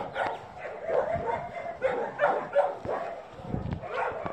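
Small black-and-tan dog yipping and barking, many short calls in quick succession.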